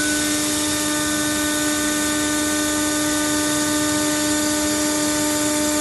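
300-watt Rofin laser cutting machine running while it cuts 6 mm clear acrylic: a steady hiss with a steady pitched hum underneath.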